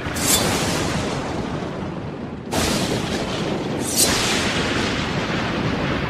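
Cinematic sound effects for an animated logo sting: a steady rush of noise broken by three sudden hits, about a third of a second in, two and a half seconds in and four seconds in.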